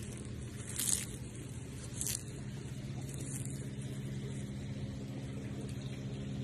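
A sulcata tortoise biting into curly kale: three short crunches about one, two and three seconds in. A steady low hum runs underneath.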